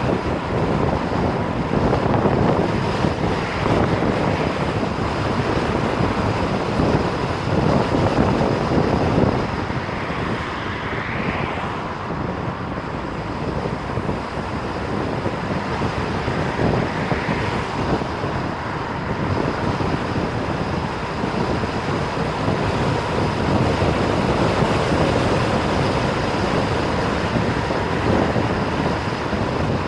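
Car on the move: steady road and tyre noise, with wind buffeting the microphone in uneven gusts.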